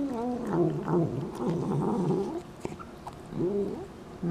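A domestic cat making drawn-out, murmuring vocal sounds of wavering pitch while eating wet food from a plate. One long call is followed, after a short pause, by two shorter ones.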